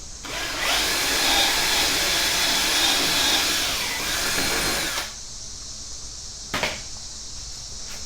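Power drill running steadily for about four and a half seconds, then stopping, followed by a single sharp click a little later.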